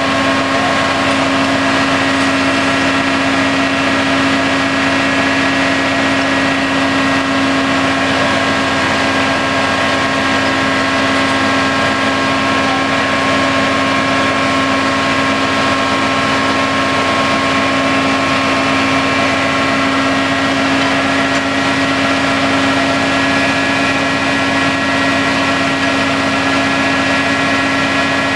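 An engine running steadily at a constant pitch, unchanged throughout.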